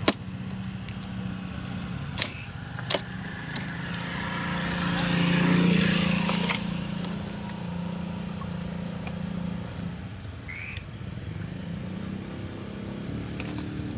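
A steady low motor hum that swells over a couple of seconds midway and then fades, like a vehicle passing. A few sharp clicks come in the first four seconds, and one short high chirp comes about ten seconds in.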